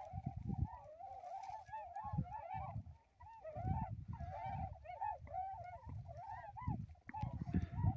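A resting flock of white geese calling on and on, many overlapping calls at once. Bursts of low rumble come and go underneath.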